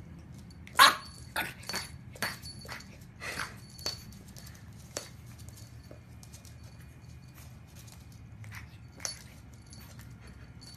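French bulldog puppy barking: a quick run of short, sharp barks in the first few seconds, the loudest about a second in, then a few scattered single barks.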